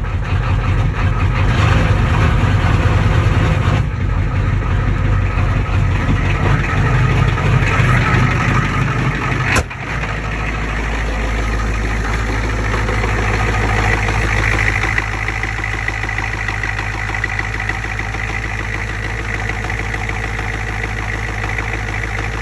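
7.3 IDI V8 diesel engine idling steadily just after a very cold start. It is heard from inside the cab at first, then, after a sharp click about ten seconds in, from outside near the engine.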